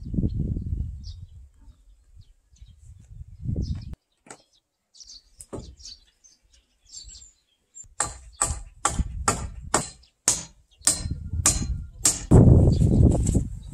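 A long-handled tool striking the old roof rafters again and again, about two blows a second, as they are knocked loose. Birds chirp in the quieter stretch before the blows, and a low rumble comes before and after them.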